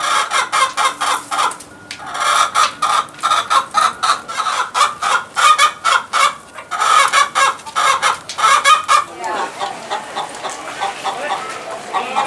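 Chickens clucking in a dense run of short, rapid calls, which give way to softer, more varied calls about nine seconds in.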